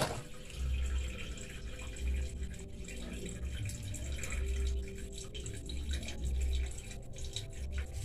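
Water trickling and dripping from the end of a twin-tub washing machine's drain hose onto a concrete floor. The gush from the hose has died down to drips. Low rumbles come and go underneath.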